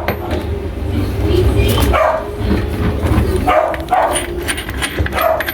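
A dog barking repeatedly, a short bark every second or two, over a steady low hum.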